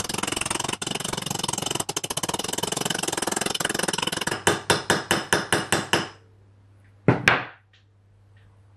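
A hammer tapping on a metal socket to drive a bearing onto the throttle spindle of a Dellorto DHLA twin-barrel carburetor. The taps come rapidly at first, then slow to separate strikes about five a second and stop about six seconds in. A loud double knock follows about a second later.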